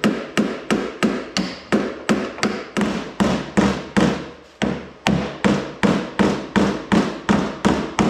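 Hammer tapping the edge of a steel door patch panel at a slow, even pace, about three light blows a second, each with a short metallic ring, folding the panel's lip over.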